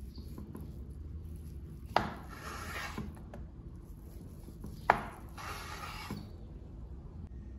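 Chef's knife slicing through fried tofu and knocking on a bamboo cutting board twice, about three seconds apart, each knock followed by a short rasping rub of the blade against the board.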